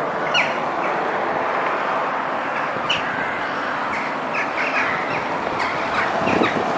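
Steady rush of a stream's running water, with birds chirping in short notes now and then.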